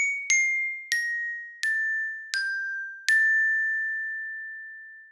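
Background music: a slow melody of six single bell-like notes in a glockenspiel or music-box sound, each struck and ringing away; the last, about three seconds in, is held and fades out slowly.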